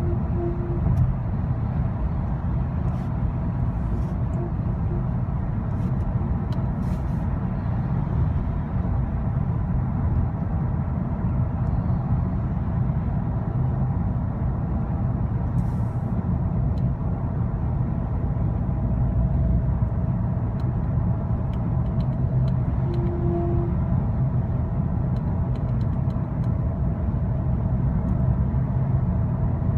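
Cabin noise of a 2010 Skoda Octavia 1.6 CR TDI at motorway speed: steady road and engine rumble with a faint, steady high whine over it, a little stronger in the second half. The owner hears this whine come and go above about 60 mph and does not know its cause.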